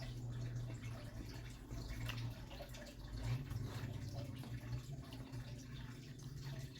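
Faint wet chewing and small mouth clicks of someone eating a creamy chicken Alfredo pasta, over a steady low hum.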